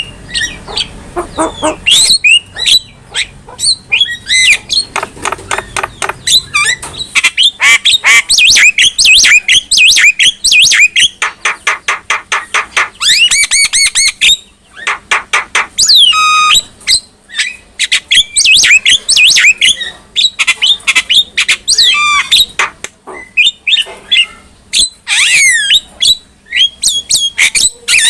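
Javan myna calling in a long, varied run of harsh squawks, chattering notes and gliding whistles, with quick repeated series of short notes in the middle.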